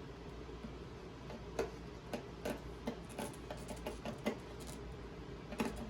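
Light, irregular clicks and taps, about seven of them scattered from about a second and a half in, as small objects are handled on a workbench, over a low steady hum.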